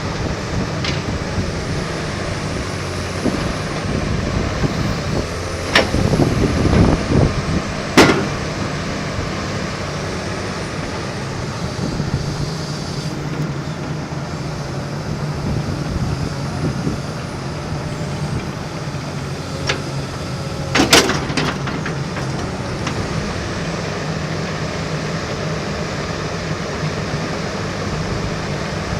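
Komatsu PC228USLC-3 hydraulic excavator's diesel engine running steadily, with a few sharp clanks: a louder rough stretch about six to eight seconds in and a pair of knocks around twenty-one seconds.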